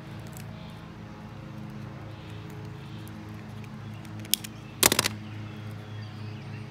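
Sharp plastic clicks and snaps as a utility knife pries open a 3D-printed plastic bullet mould: a single click about four seconds in, then a loud quick cluster of snaps half a second later, over a steady low hum.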